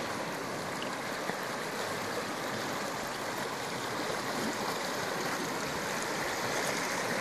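River water running through an open channel between shelves of ice, a steady rush of turbulent flow.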